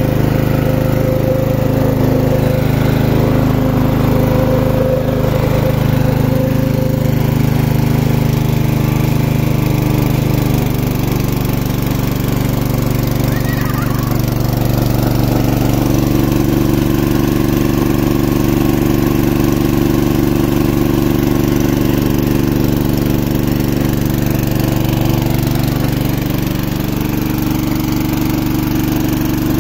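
Tiger GX200 single-cylinder four-stroke petrol engine running steadily while driving a water pump under load. Its note shifts about ten seconds in and then holds steady.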